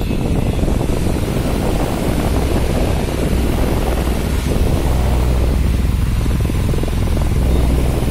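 Regency tornado desk fan running at speed: a steady rush of air from its spinning blades under a low rumble, with the airflow buffeting the microphone held close to the grille.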